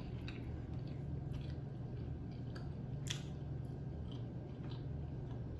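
Close-up chewing of pork neck bone meat, with scattered small wet mouth clicks and one sharper click about three seconds in, over a steady low hum.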